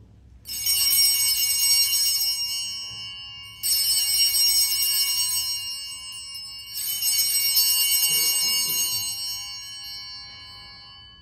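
Altar bells rung three times, about three seconds apart, each ring of bright high tones left to fade out. They mark the elevation of the host at the consecration of the Mass.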